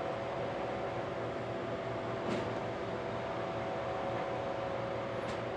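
Steady mechanical hum of running equipment, several held tones over a noisy whir, with two brief clicks about two and five seconds in.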